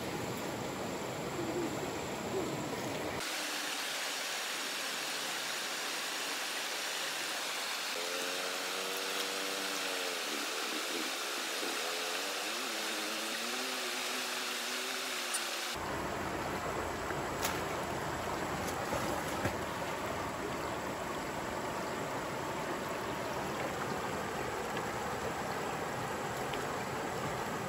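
Shallow stream running over rocks, a steady rush of water. For several seconds partway through, a low wavering call sounds over it.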